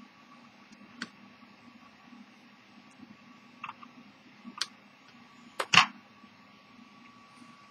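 Handling sounds from a brass-cased deck watch and its wooden box: a few light clicks, then a louder sharp double knock about five and a half seconds in. Under them runs a faint steady hum with a thin high whine.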